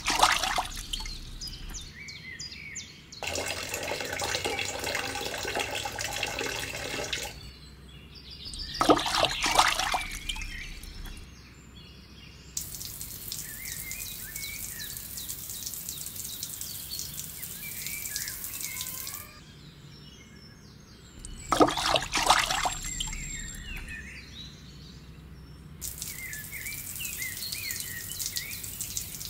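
Water poured in a thin stream from a small cup, splashing into a toy pond and trickling onto sand beds, in several separate pours with brief louder splashes. Faint bird chirps sound between the pours.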